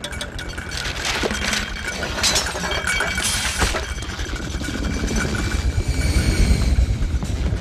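Animated sound effects of glass shattering, with several sharp crashes in the first few seconds, followed by a low rumble that grows louder toward the end.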